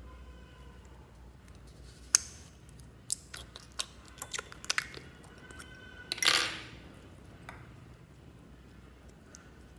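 A small plastic tube of store-bought slime being handled and opened: a sharp plastic click about two seconds in, a run of smaller clicks and taps, then a short squelching rush about six seconds in as the slime comes out.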